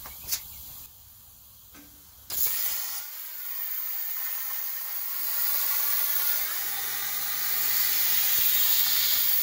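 CNC plasma cutter torch cutting a notch in steel tube: a faint click near the start, then about two seconds in the arc strikes and a loud, steady hiss runs on. A low hum joins a little past the middle.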